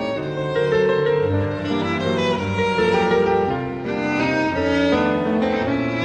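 Background music led by bowed strings, slow held notes that change about every second.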